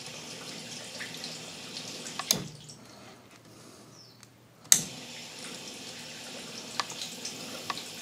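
KitchenAid dishwasher's pump running with water sloshing, a steady low hum. It cuts off with a sharp click a little over two seconds in and starts again with a louder click about two seconds later, the control board's relays now switching the pump after what the owner thinks was a stuck relay.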